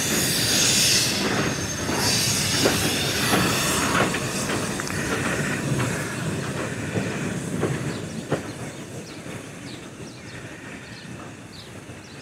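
Small steam tank locomotive running light under a footbridge, with a loud hiss of steam in the first few seconds and its wheels clicking over the rail joints. It fades as it moves away.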